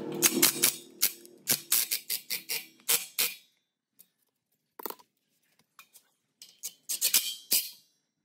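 A quick run of sharp metallic clicks and taps, several a second, for about three seconds, then a few scattered clicks: a cordless driver and hands working the nut on a gearbox shift linkage. Background music fades out at the start.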